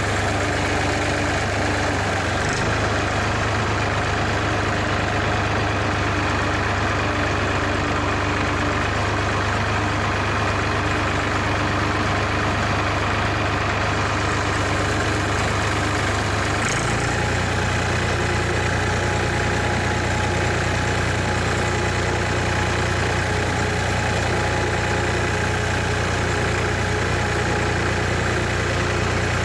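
Massey Ferguson 231 tractor engine running steadily, its note shifting slightly about 17 seconds in.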